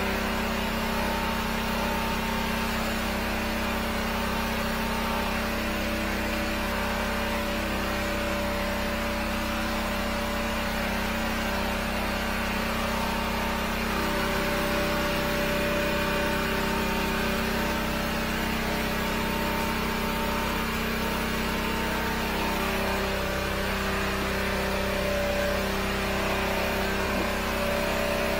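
The 13-horsepower engine of a high-pressure sewer jetter running steadily under load while the jetting hose clears a drain line, its hum shifting slightly in pitch about two-thirds of the way through.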